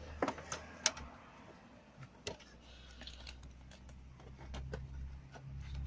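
Scattered clicks and light taps of hands handling parts under a car's bonnet, over a low rumble.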